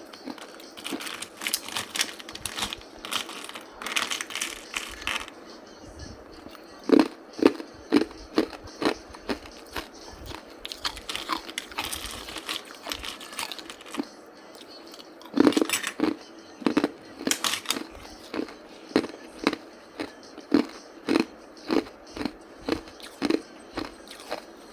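Hard ice being bitten and crunched in the mouth close to the microphone: clusters of sharp cracking bites, then steady chewing at about two crunches a second.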